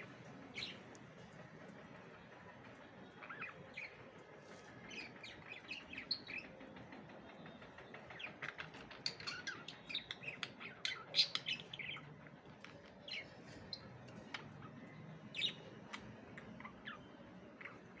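Pet budgerigars chirping and chattering in short, quick, high notes. The chatter is busiest in the middle, with a single louder chirp near the end.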